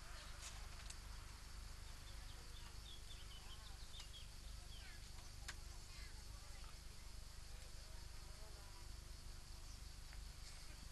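Faint outdoor ambience: a steady high insect buzz, with a few faint chirps about a third of the way to halfway through.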